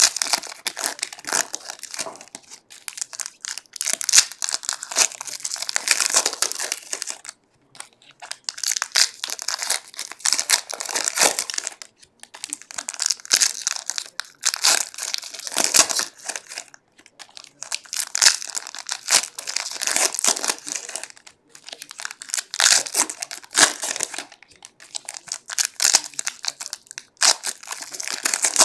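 Foil wrappers of SP Authentic hockey card packs crinkling and tearing as packs are ripped open and handled one after another, in bursts of a few seconds broken by short pauses.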